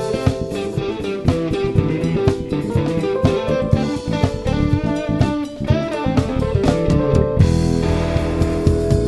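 Live band playing through a PA system: electric guitar, bass guitar and drum kit. Near the end the drums stop while the chord rings on.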